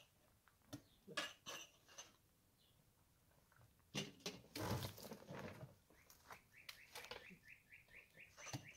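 Kitchenware being handled: scattered clinks and knocks, with a denser clatter about four seconds in. Near the end a bird gives a quick run of short high chirps, about five a second.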